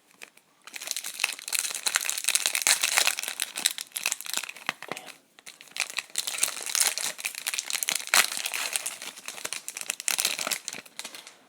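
Trading-card pack wrapper crinkling as it is torn open and handled, in two long stretches with a short pause about five seconds in.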